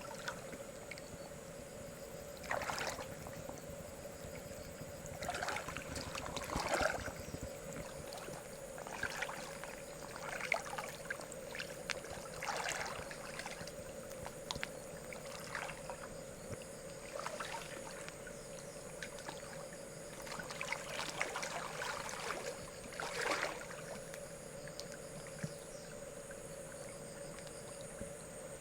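Shallow river water splashing and sloshing in short, irregular bursts every second or two, as from wading or hands moving through the water.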